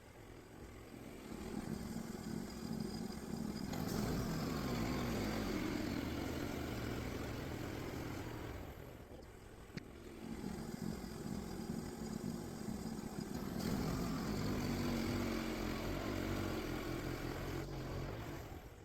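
Small gas engine of a DIY bandsaw sawmill running under load as the blade cuts through a log. The sound swells louder twice, dips briefly about nine seconds in, and cuts off suddenly at the end.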